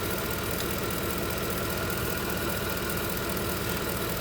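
Truck engine idling steadily, with a faint steady whine above it.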